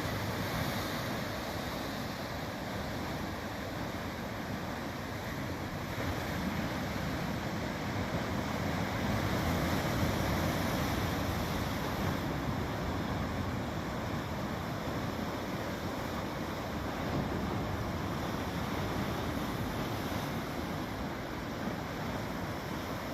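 Sea surf washing onto a beach: a steady rush of breaking waves that swells somewhat about halfway through.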